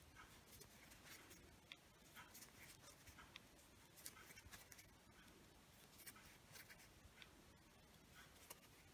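Near silence, with faint scattered small clicks and rustles from handling the crocheted yarn piece.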